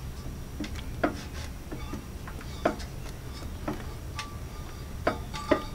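Irregular light metallic clicks and taps from the camshaft and valve tappets of a cast iron Briggs & Stratton L-head engine being worked by hand, over a low steady hum. The loudest clicks come about a second in, midway and near the end.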